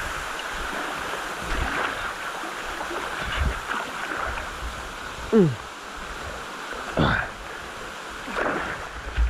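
Steady hiss of rushing canyon stream water, with three short sounds that drop steeply in pitch, the loudest about five seconds in.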